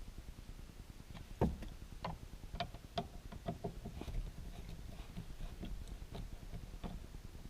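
Irregular light clicks and taps of a screwdriver working in the sun visor's mounting screws as they are tightened against the headliner, with one firmer knock about a second and a half in.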